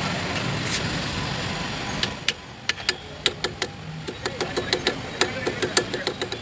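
Hammer tapping a metal hub grease cap into the centre of a front wheel hub. About two seconds in starts a quick run of about twenty sharp metallic taps, about five a second, each with a short ring. Before the taps there is a steady low rumble of vehicle noise.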